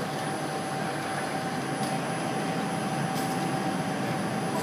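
Milling machine running with a steady hum and a constant high whine while its table is traversed out, with a couple of faint ticks.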